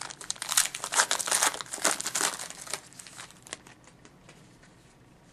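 Wrapper of a pack of hockey trading cards being torn open and crumpled, a dense crinkling that stops about three and a half seconds in.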